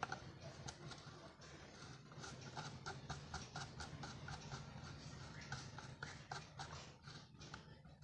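Faint, quick metallic clicks, about four or five a second, as a hand tool turns and tightens the nut on a mixer-grinder motor's shaft bushing. A steady low hum sits underneath.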